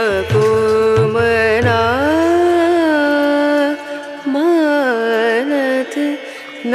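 Background music in an Indian classical style: a melody of long, sliding held notes. A low steady accompaniment sits under it until about three seconds in.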